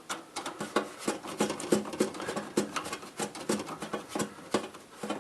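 Screwdriver fastening the PCIe USB card's bracket into the PC case: a run of small, irregular metallic clicks and scrapes, several a second.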